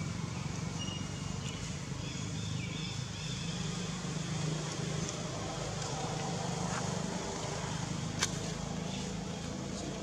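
A steady low hum under the scene, with faint high chirps in the first few seconds and one sharp click about eight seconds in.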